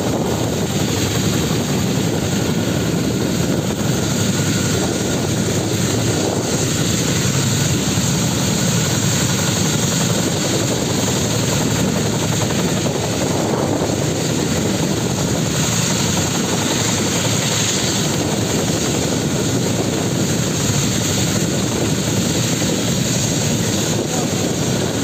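Boeing Vertol 234 Chinook tandem-rotor helicopter running on the ground, a loud, steady rush of turbine engines and turning rotors that does not change.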